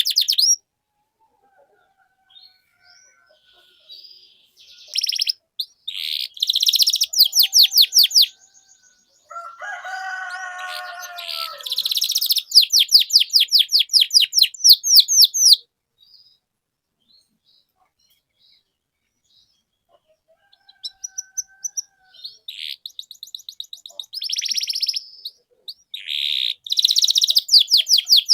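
Domestic canary singing in phrases of rapid high trills, each a few seconds long, with pauses of a few seconds between them and a lower rolling phrase near the middle.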